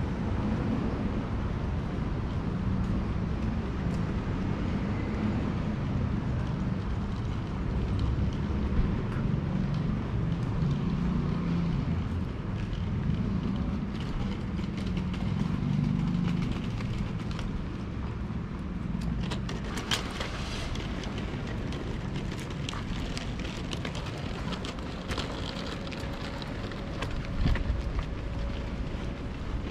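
City street ambience dominated by the low rumble of passing road traffic, swelling and easing as vehicles go by, with a few sharp ticks about two-thirds of the way through.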